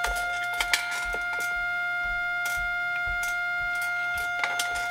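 Steady audio test tone played through a signal tracer's speaker, with scattered clicks and scratches as a probe lead is moved over the pins of a vacuum tube socket.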